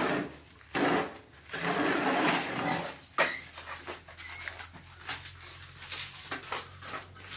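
A bucket scraping and scooping wet mortar out of a mixing tub, several rough scrapes over the first three seconds, then a sharp knock and a few lighter knocks.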